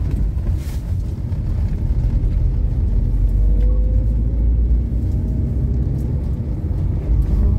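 Car driving on a rough, mud-covered road, heard from inside the cabin: a steady low rumble of engine and tyres.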